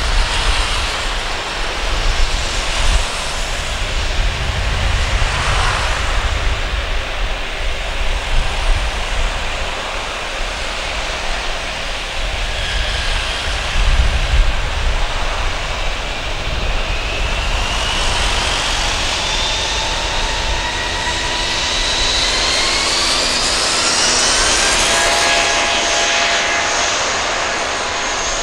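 Airbus A320-232 with IAE V2500 turbofan engines running on the runway, then spooling up: past the halfway point a whine rises steadily in pitch and grows louder, settling into a steady high whine over the engine roar as thrust builds for the takeoff roll.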